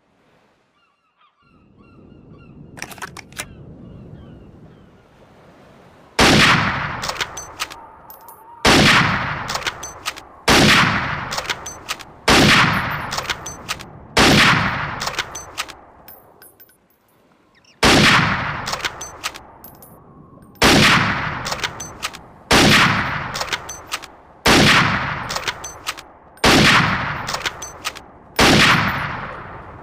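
Winchester Model 1894 lever-action rifle firing twelve shots in two runs of six, about two seconds apart. Each shot has a long fading echo, with short metallic clicks in the gaps between shots.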